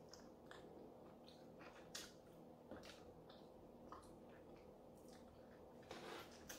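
Faint mouth sounds of a person eating chicken wings: soft scattered lip smacks and chewing clicks, with finger-licking, over a faint steady hum.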